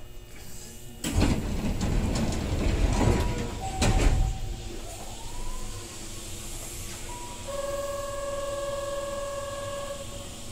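Keihan 9000 series electric train standing at a station: a loud rush of noise starts about a second in and ends in a sharp clunk. Then a whine glides upward and settles into a few steady electric tones.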